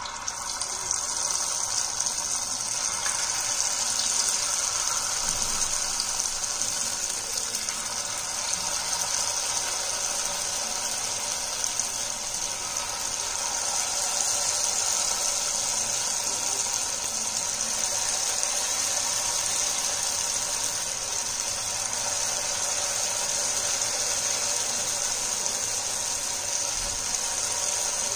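Batter-coated potato pieces deep-frying in hot oil: a steady sizzle that builds up in the first second and then holds level.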